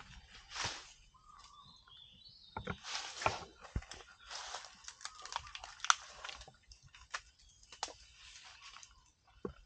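Asian elephant moving through and feeding on forest vegetation: irregular rustling and crunching of leaves and branches, with several sharp snaps, the loudest about six seconds in.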